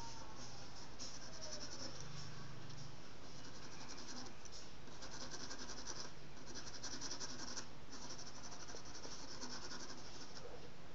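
Charcoal pencil scratching on paper in runs of quick, short shading strokes, over a steady low hum.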